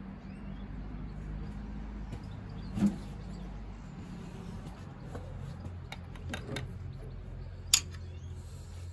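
Sharp metal clicks and knocks from a hand tool and parts being handled at the wiper spindle on the Land Rover's steel bulkhead. The loudest knock comes about three seconds in and the loudest click near the end, over a steady low hum.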